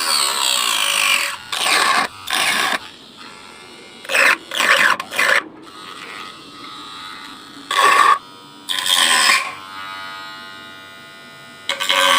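A small handheld power tool cutting into a PVC plastic box in a series of short, loud bursts, the longest at the start, to make the opening for an on/off switch.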